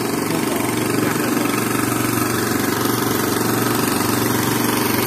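Small portable generator engine running steadily at a constant speed, a continuous even hum.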